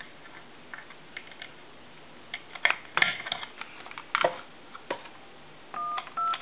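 Sharp clicks and knocks from the add-on tone keypad box and its cord being handled, then, about six seconds in, two short DTMF touch-tone beeps as keys are pressed on the keypad to dial out in tone.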